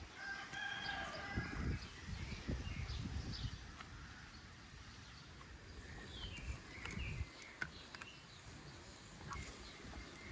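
Outdoor birds calling: a longer pitched call in the first second and a few short chirps about six to seven seconds in, over low rumbling and soft thumps.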